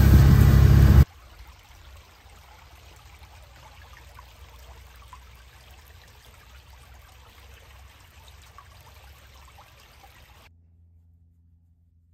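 A shallow creek trickling over rocks, fairly faint. It follows a loud rumbling noise that cuts off abruptly about a second in, and near the end it gives way to near silence.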